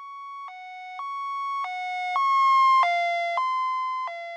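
Ambulance siren sounding its two-tone hi-lo wail, a high note and a low note alternating about every half second. It grows louder, then fades with a slight drop in pitch as it passes.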